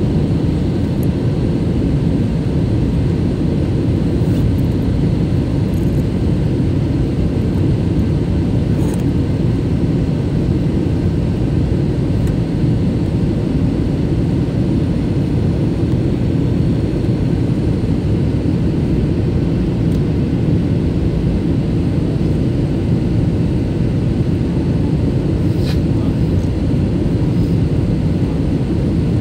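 Steady low rumble of an Airbus A321 airliner's cabin in descent, engine and airflow noise heard from a window seat, with a couple of faint clicks.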